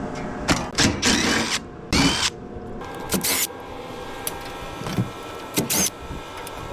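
Metal parts of a gas heater being worked apart: a run of irregular sharp knocks and clanks, with several short scraping sounds, the longest about half a second, over a faint steady hum.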